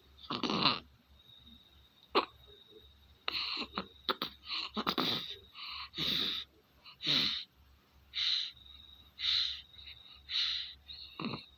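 Sleeping baby snoring, with noisy, wheezy breaths about once a second; the snoring comes with a fever.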